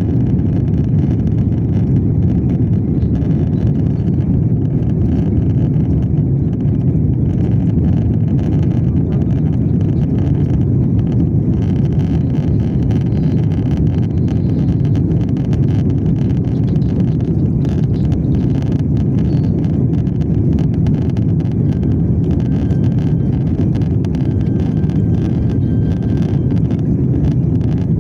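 Airliner taking off, heard from inside the passenger cabin: a steady, loud, deep rumble of the engines at takeoff power and the rush of the aircraft.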